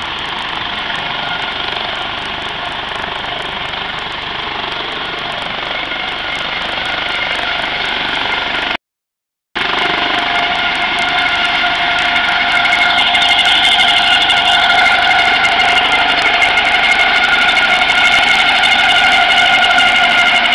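Medical helicopter's engine and rotors running with a steady whine. It grows louder as the helicopter lifts off and climbs overhead. The sound drops out briefly about nine seconds in.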